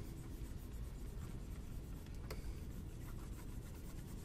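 Faint scratching and rubbing of a stylus drawn across a graphics tablet as brush strokes are painted, with one light click a little past halfway.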